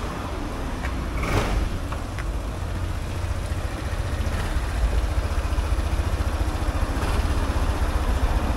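Kymco Super Dink 300i scooter's single-cylinder four-stroke engine idling, a steady fast low pulsing.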